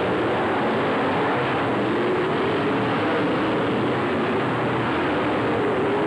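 Dirt late model race cars' V8 engines running together on the track, a steady loud drone whose pitch wavers up and down as the cars circle.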